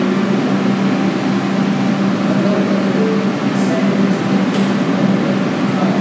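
R142 subway car standing at the platform, its onboard equipment giving a steady, even hum with a low constant tone. A short hiss is heard about four and a half seconds in.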